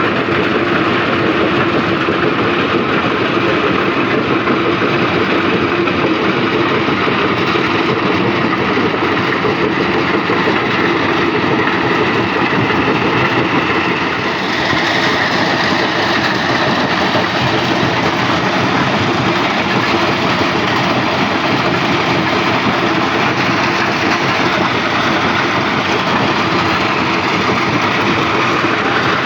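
Stone crusher machine running with a loud, continuous mechanical rattle and grind, its character shifting slightly about halfway through.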